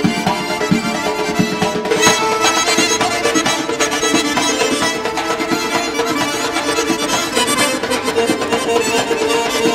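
Instrumental folk dance music playing continuously, with a steady held note under the melody.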